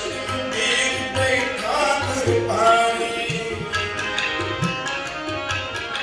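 Live Sikh Gurbani kirtan: ragis singing to harmonium, with a tabla pair keeping a steady rhythm of drum strokes, heard through the hall's microphones.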